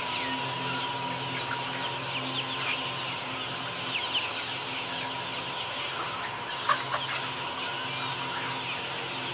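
A large flock of chickens clucking and chirping together in a dense, continuous chatter of many short calls, with a steady hum underneath.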